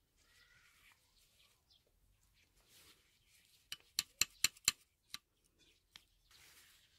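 Steel flat-nose pliers being opened and closed by hand, the jaws clicking shut metal on metal: a quick run of about five sharp clicks a little before halfway, then two more single clicks.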